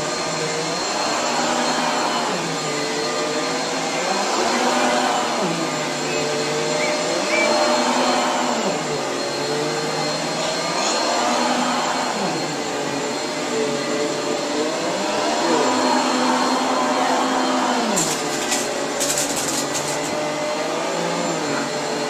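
Household vacuum cleaner running steadily, its motor pitch dipping and rising again every two to three seconds.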